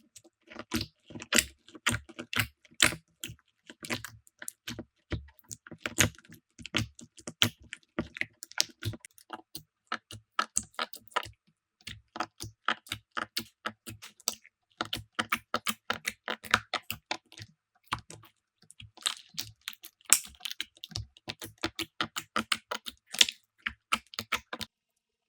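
Slime being squeezed and stretched by hand, giving rapid, irregular crackling clicks and pops that stop abruptly near the end.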